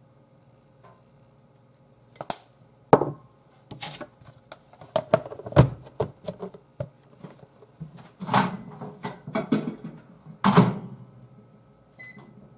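A plastic microwave steamer container being handled: a run of knocks and clatters as a silicone lid is pressed onto it and it is picked up. Near the end comes a short electronic beep from a microwave oven's keypad as the oven is set.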